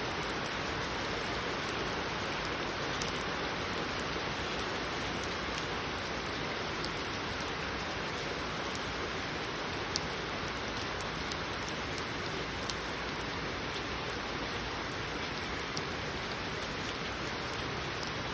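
Steady rain falling, an even hiss with scattered sharper drops ticking on a surface; one drop stands out about ten seconds in.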